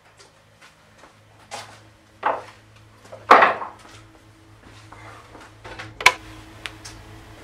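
A few knocks and thuds as a person moves about a workshop, the loudest a little past three seconds in, then a sharp click about six seconds in as a brass lamp holder is handled, all over a steady low hum.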